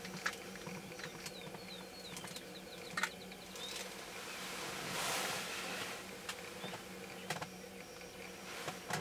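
Sharp-tailed grouse displaying on a lek: a few sharp clucking calls, a quick run of short high falling notes in the first half, and a louder buzzing rattle about halfway through, typical of dancing males' stamping feet and rattling tail feathers.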